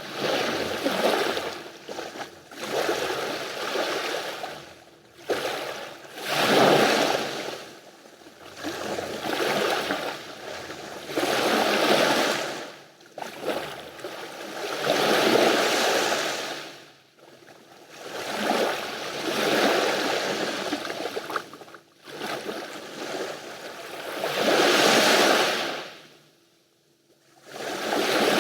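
Small sea waves washing onto the shore, each wash swelling and fading every one to three seconds. There is a brief lull, close to silence, near the end.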